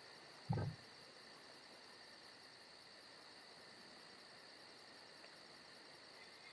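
Faint crickets chirring steadily, with a fast even high pulse. A short low sound comes about half a second in.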